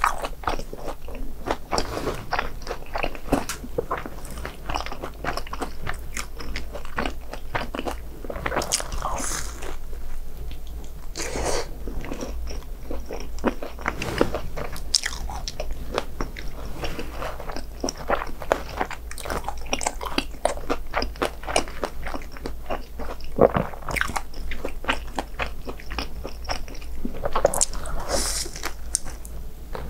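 Close-miked eating of crisp, batter-fried snacks: crunchy bites and chewing, with several louder crunches spread through.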